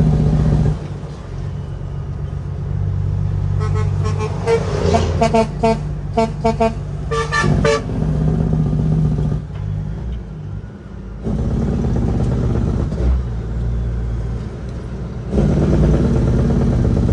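Kenworth W900L's Caterpillar 6NZ inline-six diesel running under a heavy load, its level dropping and rising several times. About four seconds in, a vehicle horn gives a quick run of short toots.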